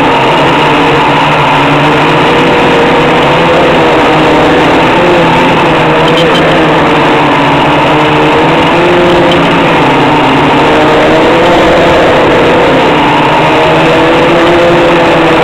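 Homebuilt quadcopter's brushless motors and propellers running loudly in flight, heard close up from the onboard camera: a continuous hum of several tones whose pitch wavers up and down as the flight controller keeps adjusting motor speeds to hold the craft steady.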